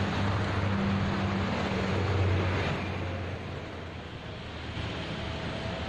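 Road traffic passing on a toll road: a steady rumble of vehicles, loudest about two seconds in and easing after.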